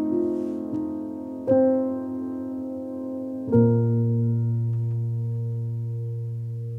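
Background solo piano music, a slow anime-song piano arrangement: a few chords struck a second or two apart, then a low chord about three and a half seconds in that is held and slowly fades.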